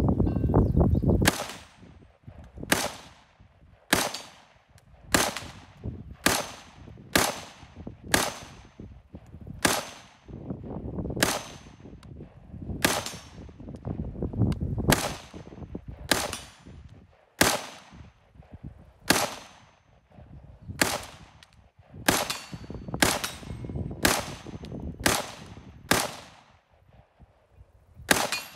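Springfield Armory Hellion (Croatian VHS-2) 5.56 NATO bullpup rifle fired semi-automatically: about two dozen single shots at an uneven pace, roughly one a second with some quicker pairs, each with a short ringing tail. A low rumble fills the first second.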